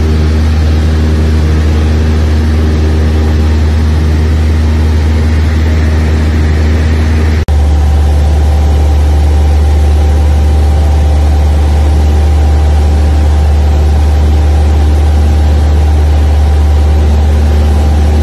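Aircraft engine running steadily with a loud, deep drone, broken by a brief dropout about seven seconds in.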